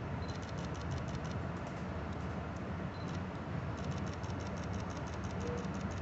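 New Jersey Transit commuter train running, heard from inside the passenger car: a steady low rumble with two spells of fast, light rattling, one near the start and one from about four seconds in.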